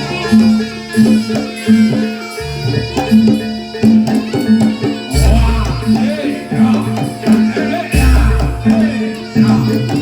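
Traditional Javanese barongan accompaniment music played live: drums and pitched percussion keep a steady repeating beat, with melodic lines above. About five seconds in, deep low strokes join, recurring roughly every three seconds.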